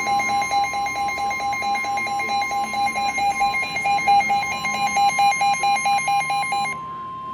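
Weather-radio warning alert tone: a steady single-pitch tone near 1050 Hz, the NOAA Weather Radio alarm that opens a new warning. It is overlaid by a fast pulsing electronic alarm beep that cuts off shortly before the steady tone ends.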